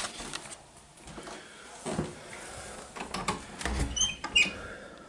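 Footfalls and light knocks in an old wooden house, with a few short high squeaks about four seconds in.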